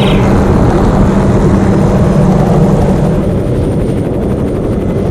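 Hughes 500 (MH-6 Little Bird) helicopter in flight, heard from on board: steady, loud rotor and turbine noise mixed with wind, easing slightly about three seconds in.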